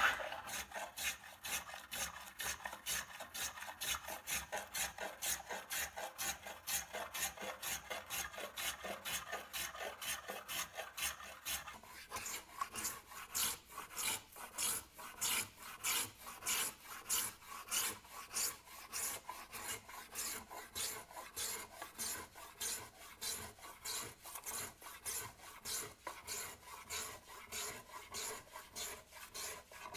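Small hand plane shaving curls off the edge of a wooden stool seat in quick, even strokes, about two a second.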